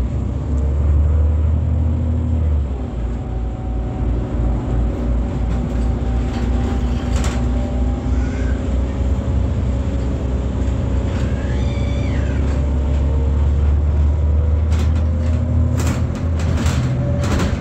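Irisbus Citelis 18 articulated bus with an IVECO Cursor 8 diesel engine and ZF gearbox, heard from on board: a steady low engine drone with a faint whine drifting slowly in pitch. A short squeak comes about two thirds of the way in, and a few sharp clicks near the end.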